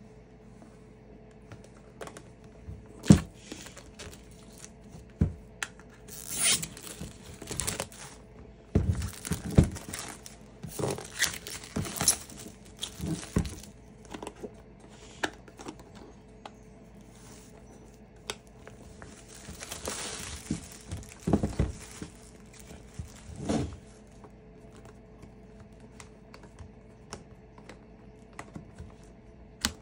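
Clear plastic shrink-wrap being torn and peeled off a cardboard box, crinkling in two long spells, with a few sharp knocks from the box being handled; only light ticks near the end.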